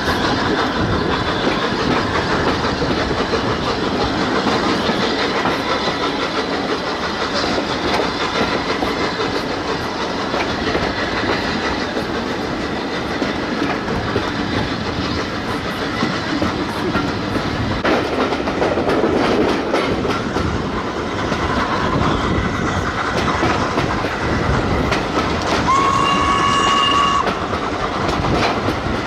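Train running along the track, its wheels clattering over the rails. A whistle sounds once, briefly, near the end.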